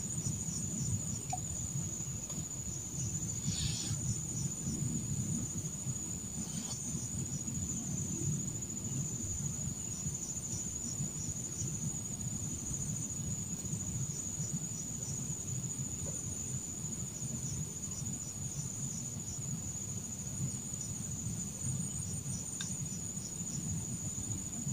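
Insects singing: a steady high-pitched trill that never breaks, with a faster pulsing chirp just beneath it, over a low rumble.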